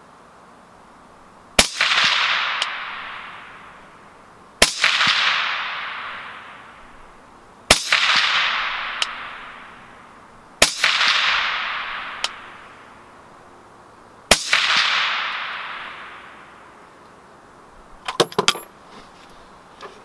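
Five suppressed shots from an AR-15-pattern SPR rifle in .223 Wylde, about three seconds apart, each followed by a long echo rolling off across the range. A few light clicks of handling near the end.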